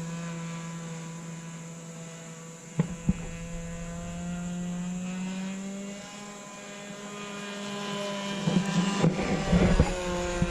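Small ABC glow engine of an RC sport plane in flight, a steady buzzing drone whose pitch drifts slightly up and down. Two sharp knocks come about three seconds in, and a cluster of knocks comes near the end.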